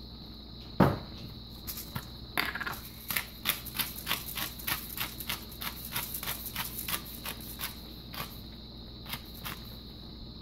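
Kitchen utensil sounds: a sharp knock, then a run of quick, even clicks, about four a second, for several seconds.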